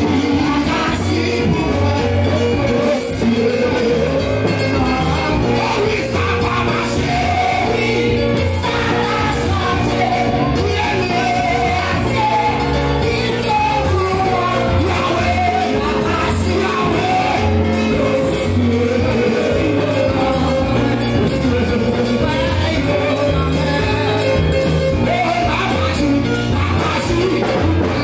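Loud Pentecostal praise music: a congregation singing together over amplified band music with a steady beat and a repeating bass line.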